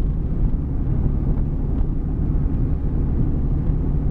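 Lifted Jeep driving on snow-covered road, heard from inside the cab: a steady low rumble of engine and tyres.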